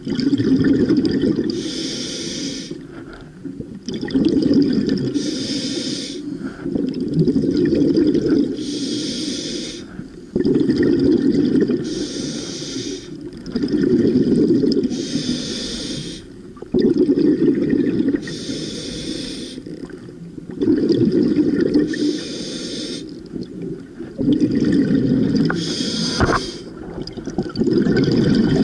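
Scuba diver breathing through a regulator underwater: a hiss of air on each inhale, then a low gurgle of exhaled bubbles. The cycle repeats about every three and a half seconds, some eight breaths in all.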